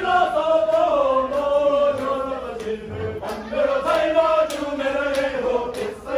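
Group of male voices chanting a Buddhist prayer together in long, slowly gliding held notes, with a few sharp clicks or strikes in the second half.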